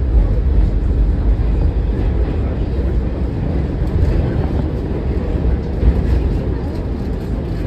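Steady low rumble of a New York City subway car on the Q line running along the track, heard from inside the car, with a few faint clicks.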